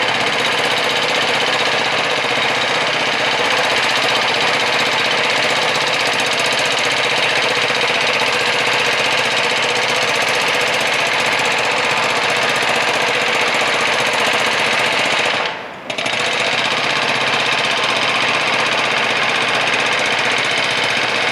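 Jackhammer hammering continuously, cutting out briefly about fifteen seconds in and then starting again.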